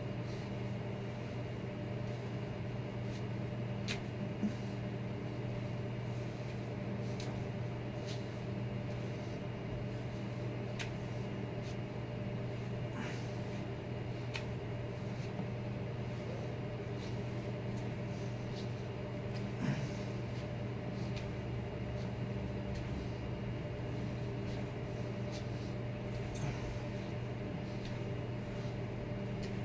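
A steady machine hum with a few faint clicks, one about twenty seconds in with a soft low thump.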